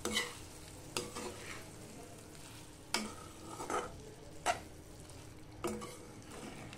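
Metal spatula stirring and scraping cooked bitter gourd rings around a frying pan: about six scraping strokes at uneven intervals, over a faint steady sizzle.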